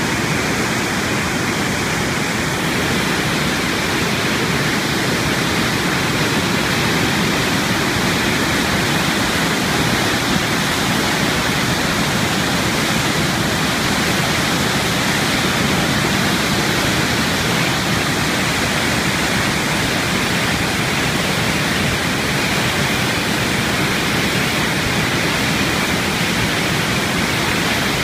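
Spokane River's Upper Falls thundering over a basalt ledge: a loud, steady roar of falling and churning white water, unbroken throughout.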